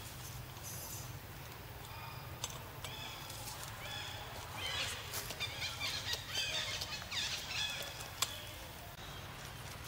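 High, short chirping animal calls repeating, with a busy stretch of many overlapping squeaky calls from about four and a half to eight seconds in and a single sharp click near the end, over a steady low outdoor hum.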